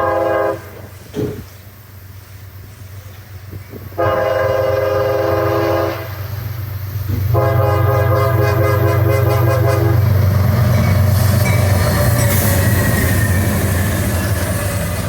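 Locomotive air horn sounding long chord blasts: one ends just after the start, another comes about 4 seconds in for two seconds, and a third comes about 7 seconds in for nearly three seconds. Under the horn, a passing train's rumble and wheel clatter grow louder from about 7 seconds in and stay loud.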